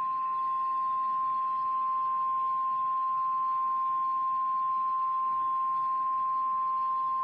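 NOAA Weather Radio warning alarm tone: one steady, unbroken 1050 Hz tone over faint radio hiss, the alert that a warning message is about to be read.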